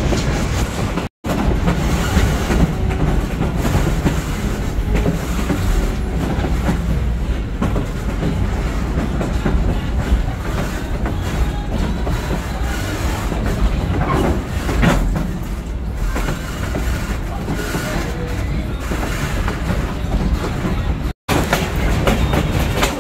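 Steady rumble and clickety-clack of a passenger train's wheels on the rails, heard from an open-air coach in motion, with a brief faint wheel squeal a little past the middle. The sound cuts out for an instant twice.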